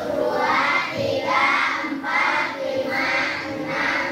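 A class of children's voices together in unison, chanting in an even rhythm of about five strong beats in four seconds.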